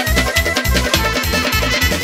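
Live Dagestani lezginka instrumental: a clarinet melody over a fast, even drum beat of about four to five beats a second, with keyboard accompaniment.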